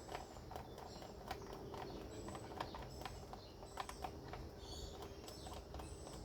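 Small clicks and taps of chainsaw parts being handled, with birds chirping in the background.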